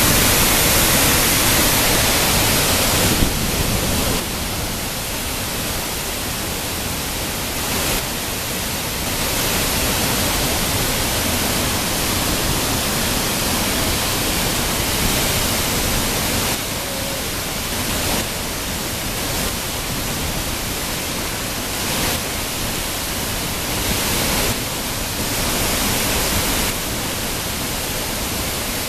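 Henrhyd Falls, a tall waterfall, pouring: a steady, dense rush of falling water that shifts slightly in loudness and brightness every few seconds.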